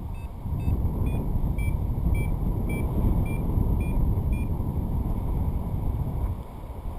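Wind rushing over the microphone in flight, with a paraglider's variometer beeping about twice a second in short high pips, which stop a little past the middle; such beeps are a variometer's climb tone, the sign of rising air.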